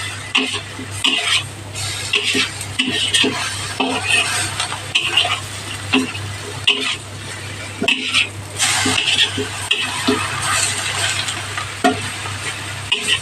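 A utensil stirring and scraping katuray leaves as they fry in a pan: a run of short, irregular scrapes over a faint sizzle, with a low steady hum underneath.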